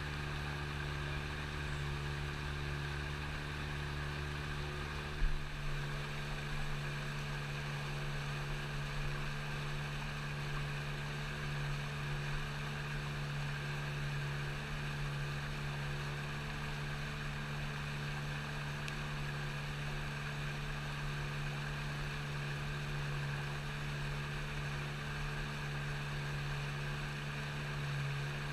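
A small boat's motor running at a steady low speed, giving an even low hum. A short knock about five seconds in.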